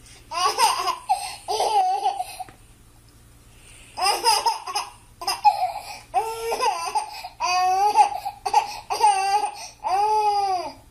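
Baby laughing in high-pitched bursts, several runs of giggles with a short pause about two seconds in.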